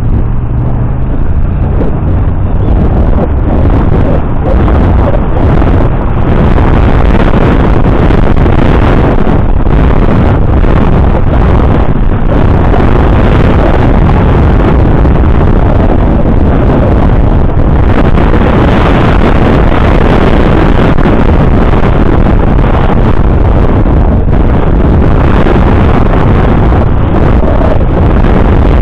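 Loud, steady wind rushing and buffeting over the microphone.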